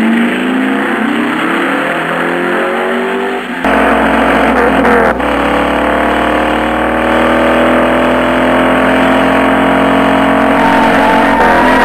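Several race car engines accelerating at once, their pitch climbing. About three and a half seconds in the sound cuts abruptly, louder, into another stretch of engines rising slowly in pitch.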